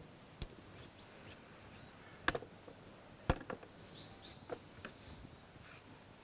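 A few scattered sharp taps and knocks of kitchen utensils against bowls on a table, the loudest about two and three seconds in, with faint bird chirps in the background.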